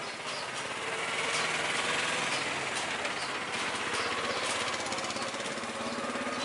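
Street traffic: a steady din of engines with a rapid mechanical rattle.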